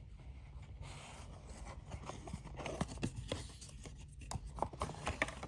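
Watch packaging being handled and opened by hand: rustling with scattered light clicks and taps.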